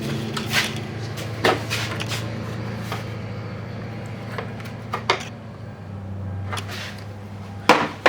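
A socket and driver being fitted onto the door handle's 10 mm retaining screw: about five separate sharp metal clicks and knocks, the loudest near the end, over a steady low hum.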